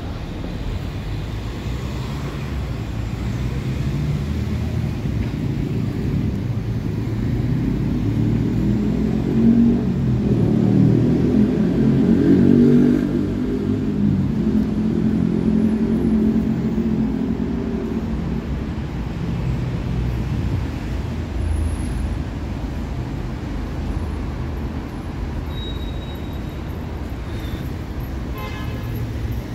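Road traffic on a busy city street: a steady low rumble of engines and tyres. It swells louder in the middle as a motor vehicle's engine passes close, then settles back.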